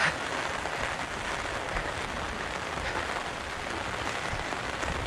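Steady heavy rain falling, an even hiss with scattered faint drop ticks.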